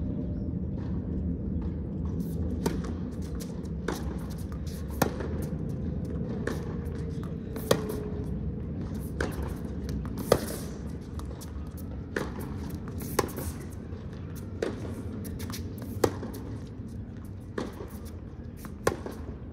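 Tennis rally: crisp racket strikes on the ball, about one every second or so, some louder from the near player and some fainter from across the court, with softer ball bounces between. A steady low rumble runs underneath.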